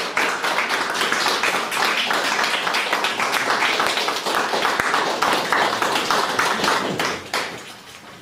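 Small audience applauding, many hands clapping quickly and unevenly; the applause dies away near the end.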